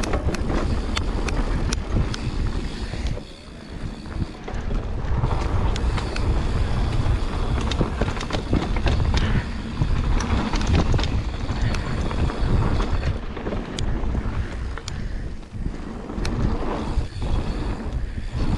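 Wind buffeting the microphone and tyres rumbling over dirt as a mountain bike descends a trail at speed, with scattered sharp clicks and rattles from the bike over bumps.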